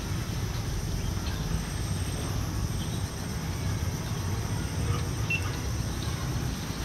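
Outdoor ambience: a steady low rumble with a faint, even, high-pitched insect drone above it.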